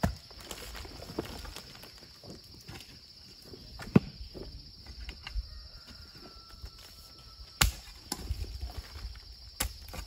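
Hoe chopping into a bank of earth: a few sharp strikes, the loudest about four seconds in, with soil crumbling and scraping between them, over a steady high-pitched hum.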